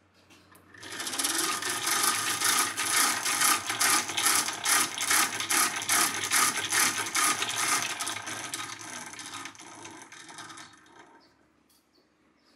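Hand-cranked 1920s Stewart Handy Worker vise-grinder being turned, its exposed spur gears whirring and clattering with rapid regular clicks as they spin the grinding wheel. The sound builds over about a second, runs steady, then dies away over the last few seconds as the crank is let go and the gears coast to a stop.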